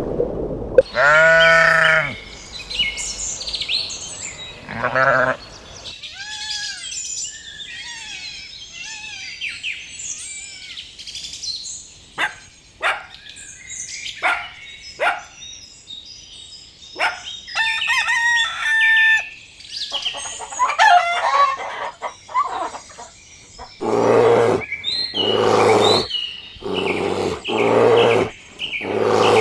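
A mix of farm animal and bird calls: a loud pitched call about a second in, then many short bird chirps and clicks, and near the end a run of loud calls repeated about once a second.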